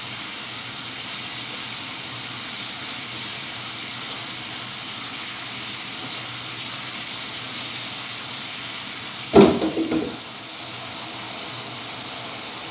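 Water running steadily into a dog-grooming tub, a constant hiss. About nine seconds in, a brief loud sound cuts across it.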